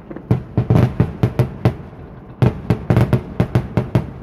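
Fireworks display going off in a rapid barrage of sharp bangs, several a second. The bangs ease off briefly about halfway through, then come thick and fast again.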